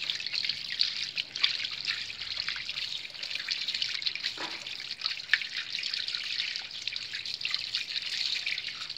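Tap water running in a steady stream onto pieces of cut fish in a plastic bag, splashing over the hands that rub and rinse them and spattering onto the concrete floor, with small wet clicks throughout.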